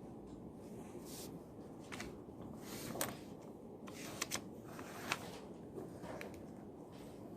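Library room tone with a few short rustles and sharp clicks of paper and stationery being handled at a study desk, including a quick double click just past the middle.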